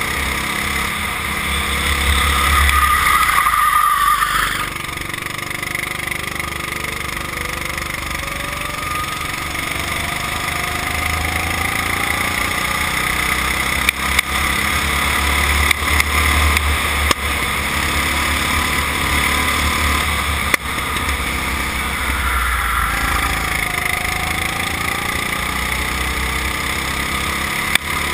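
Go-kart engine running at speed, heard onboard from the driver's seat, its pitch and loudness shifting with the throttle. It is loudest in the first few seconds, then drops suddenly as the throttle comes off.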